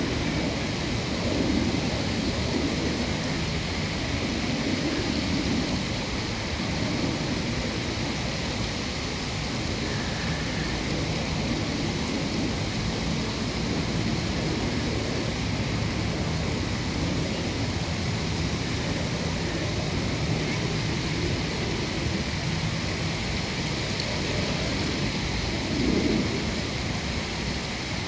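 Steady outdoor background noise with a low rumble that swells and fades every few seconds.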